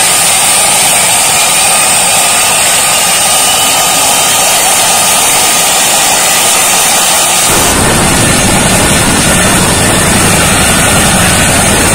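Boeing CH-47 Chinook helicopter running on the ground: a loud, steady turbine whine over a dense roar. About two-thirds of the way in, a deeper rumble suddenly grows louder.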